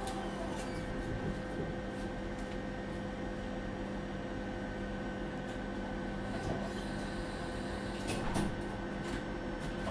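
Steady electrical hum inside a Tatra T4DC tram, several constant tones held without rising or falling, with a few faint clicks and knocks.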